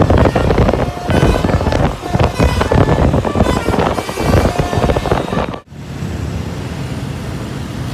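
A bus's Basuri telolet horn sounds short melodic notes over loud engine and road noise. About five and a half seconds in the sound cuts off suddenly, leaving a steady, quieter engine hum.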